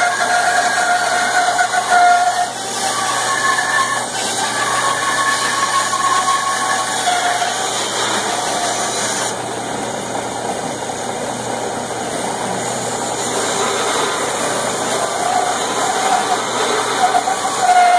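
Band saw running and cutting through a thick wooden board: a steady loud whir and rasp of the blade, its tone wavering as the wood is fed.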